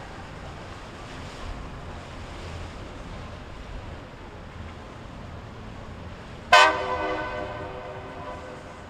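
A single loud horn blast, most likely a boat's horn, about two-thirds of the way in: it starts abruptly and fades away over about two seconds. Underneath is a steady rumble of engines and water.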